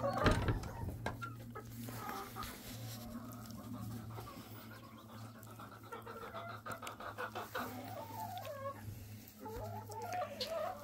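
Laying hens clucking, with a few drawn-out warbling calls that rise and fall in pitch in the last few seconds, over a steady low hum.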